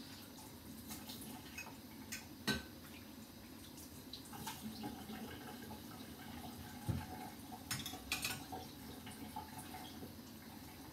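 Turnip and potato curry simmering under a glass lid in a covered pan, with scattered pops and sputters over a steady low background; the sharpest pops come about two and a half seconds in and again around seven and eight seconds in.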